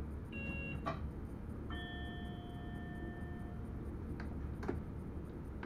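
Steady low rumble of a train running, heard from inside the driver's cab. A brief tone and a click come near the start, then a bell-like chime rings for about two seconds, and two sharp clicks follow near the end.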